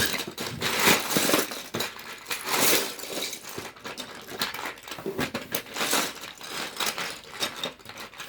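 Loose plastic Lego bricks clattering and rattling as hands rummage through a pile of them, with many small clicks, stopping suddenly at the end.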